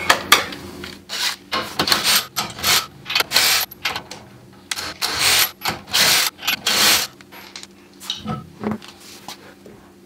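Cordless impact wrench spinning lug nuts off a car wheel in a series of short bursts, one after another, stopping about seven seconds in. A few fainter knocks follow near the end.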